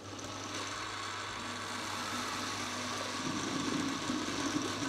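Stand-mixer blender attachment running, its motor humming steadily as it blends frozen raspberries with hot sugar syrup into a sorbet. The churning gets a little fuller and louder about three seconds in.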